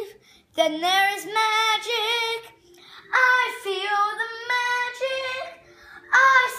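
A young boy singing solo and unaccompanied, a Christmas show tune: three sung phrases with short breaks for breath between them, some notes held long and steady.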